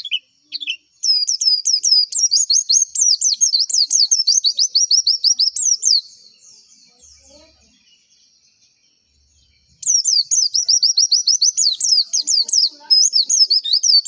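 White-eye (pleci) singing a fast, high chattering song in two bouts: one from about a second in until about six seconds, then a pause, and a second bout starting near ten seconds.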